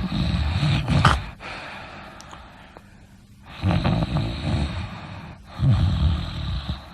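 A person snoring: three snores, the first fading out about a second in, then two more in quick succession after a pause of about two seconds.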